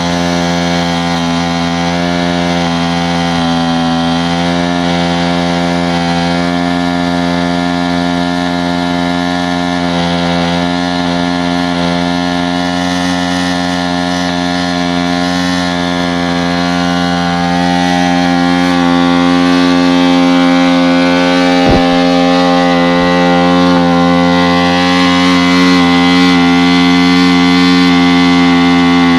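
Honda XR 250 Tornado's single-cylinder four-stroke engine running at a steady speed, getting louder a little past halfway through.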